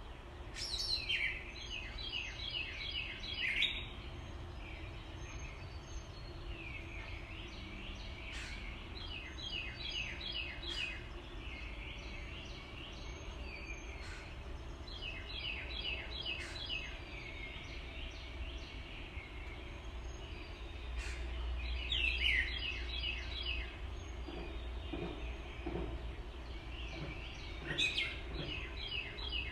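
Water rushing steadily over a low river dam. Over it, a songbird sings a short song of quickly repeated notes five times, about every six seconds.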